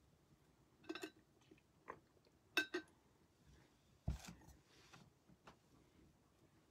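A handful of faint, scattered clicks and taps, the loudest a pair a little under three seconds in, with a soft thump just after four seconds.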